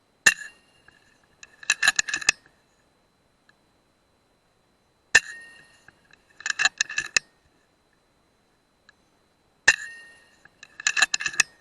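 Three shots from an FX Dreamline .177 PCP air rifle, each a sharp crack with a short metallic ring. About a second after each shot comes a quick run of clicks as the action is cycled to load the next pellet.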